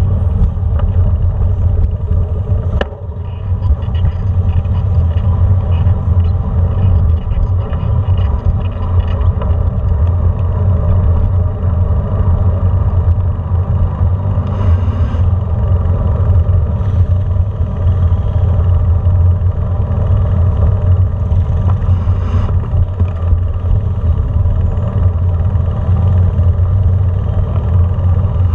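Steady, loud low rumble of a vehicle riding slowly along a brick-paved street, with a single sharp knock about three seconds in.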